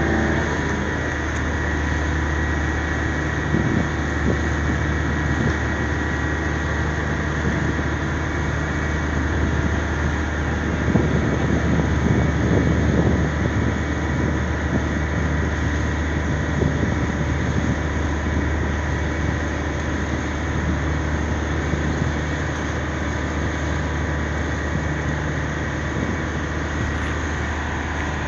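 A large engine running steadily: a constant low drone with a broad hiss over it, swelling slightly about halfway through.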